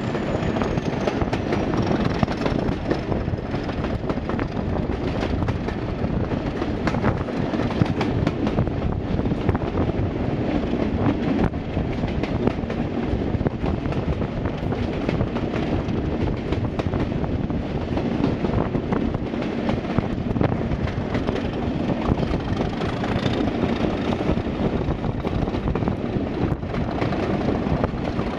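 Class 47 and Class 37 diesel-electric locomotives working hard together, their engines running loudly and steadily with irregular clicks of wheels on rail. A high whistle falls in pitch over the first few seconds.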